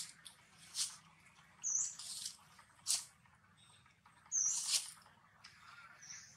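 Long-tailed macaque eating a soft ripe fruit, making short bursts of wet chewing and smacking about every second or two. A bird's short high chirp repeats several times.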